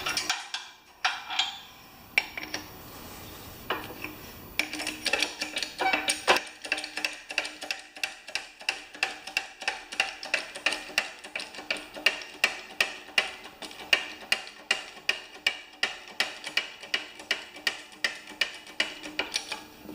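A few knocks, then a homemade bottle-jack press being worked: the jack handle clicks in a steady rhythm of about three clicks a second as the press bears down to break the bead of a stiff old lawn-tractor front tire.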